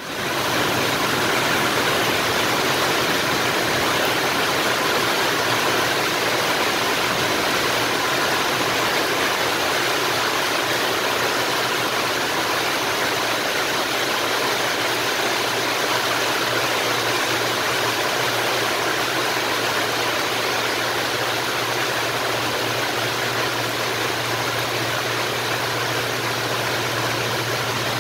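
Heavy rain pouring down, a dense steady hiss. Under it, a low hum from the approaching freight train's locomotive grows stronger in the second half.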